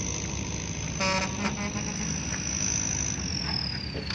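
Low, steady rumble of diesel machinery running, with a steady high-pitched whine that dips in pitch and rises again near the end. A short pitched sound comes about a second in.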